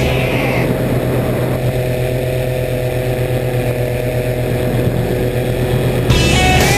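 Microlight trike's engine and propeller droning steadily in flight.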